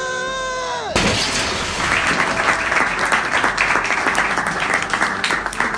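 Dubbed sound effects: a short pitched cry that holds, then drops in pitch and cuts off about a second in, followed by several seconds of dense crowd clapping.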